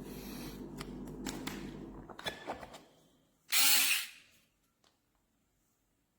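Small cordless electric screwdriver motor running with a steady whirring hum and a few clicks, winding down about two seconds in. A short loud clatter follows a second or so later.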